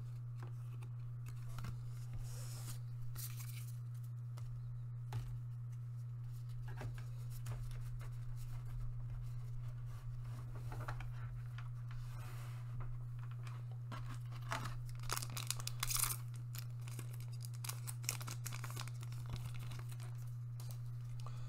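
Foil booster pack being cut open with scissors and handled: faint crinkling and rustling of the wrapper, busiest about fifteen seconds in, over a steady low hum.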